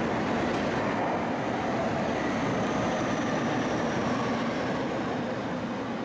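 Tokyo Metro Tozai Line 05 series chopper-control train pulling out, its motors and wheels running with faint high whining tones that drift in pitch, fading down near the end.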